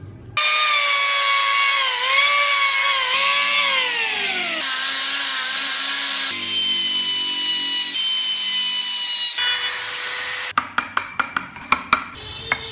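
Handheld power tool carving wood: a loud motor whine whose pitch sags as the tool bites into the wood, changing abruptly a few times. The whine stops near the end, and a quick run of sharp knocks follows.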